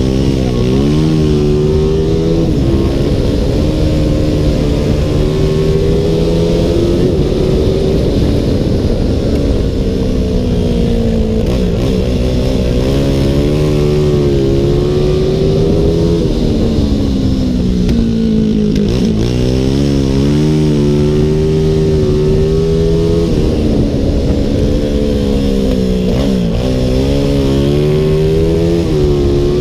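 Onboard sound of a CG 300 racing motorcycle's single-cylinder four-stroke engine at race pace. Its pitch climbs over several seconds, then drops sharply, about six times, as the bike accelerates out of each corner and backs off into the next.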